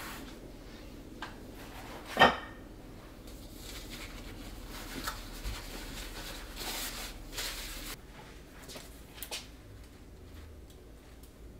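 Kitchen handling sounds: one sharp knock about two seconds in, the loudest sound, then paper towels rustling and crinkling as eggplants are wrapped in them, with a few light taps.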